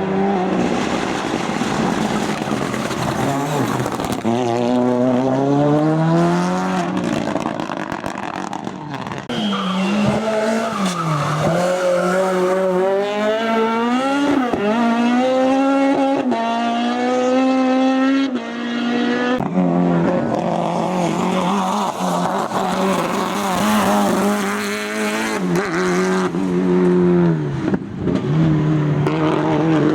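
Race car engine driven hard, the revs climbing and then dropping sharply again and again through gear changes and lifts off the throttle.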